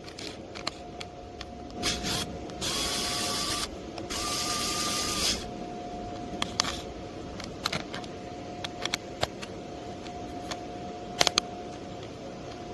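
A small electric screwdriver motor runs in two short bursts of about a second each. Scattered clicks and a faint steady whine sound throughout.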